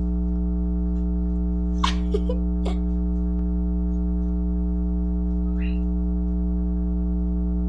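A steady hum made of many evenly spaced overtones, loud and unchanging. Near the two-second mark come a few brief sharp sounds, and a short higher chirp comes past the middle.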